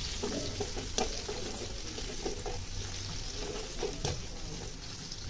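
Sliced onions sizzling in hot oil in a metal karai as a silicone spatula stirs them, with a couple of light knocks of the spatula against the pan, about a second in and again near four seconds.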